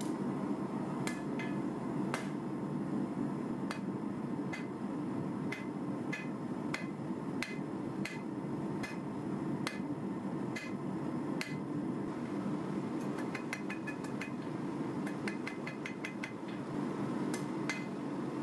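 Hand hammer striking a red-hot W1 drill rod on a steel anvil, drawing out its tip, each blow ringing. Blows come about once a second, then about two-thirds of the way through quicker, lighter taps several a second. Under them runs the steady rushing noise of the gas forge burner.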